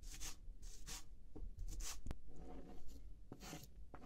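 Kitchen knife chopping fresh green garlic on a plastic cutting board in separate, uneven strokes. Near the end the chopped garlic is scraped off the board into a glass bowl with the blade.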